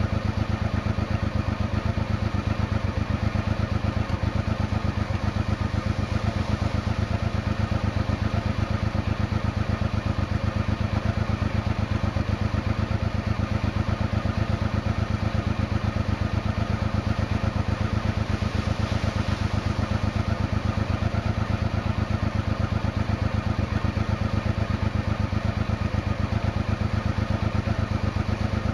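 1992 Honda XRV750 Africa Twin's liquid-cooled V-twin engine idling with an even, unchanging beat.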